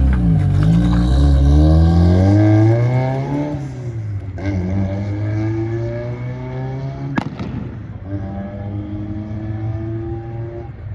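A car engine accelerating away, its pitch climbing, then dropping at a gear change about four seconds in and climbing again through the next gear while it fades. A single sharp click comes a little after seven seconds.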